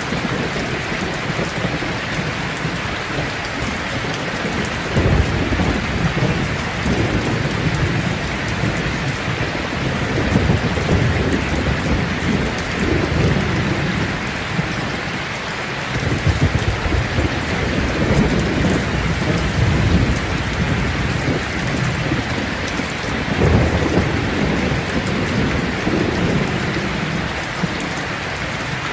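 Steady rain falling, with thunder rumbling low several times as it rolls in and fades.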